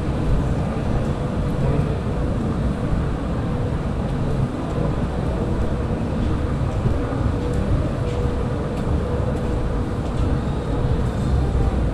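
Steady low rumble of background noise with a faint steady hum.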